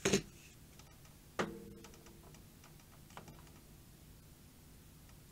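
Tools being handled on a workbench: a knock right at the start, a sharp metallic clink with a brief ring about a second and a half in, then a faint tick about three seconds in.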